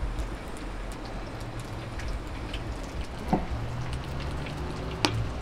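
Flatbread frying in a wide pan, sizzling and crackling with many fine pops, with two sharper ticks about three and five seconds in.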